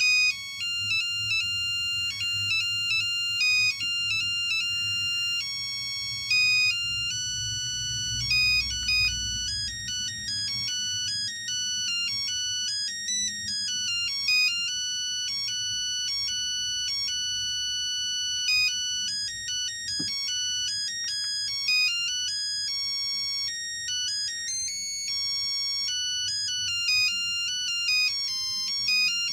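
LG V111 mobile phone playing an electronic ringtone melody through its small built-in speaker: several notes at once, all high and thin with almost no bass. A single click comes about twenty seconds in.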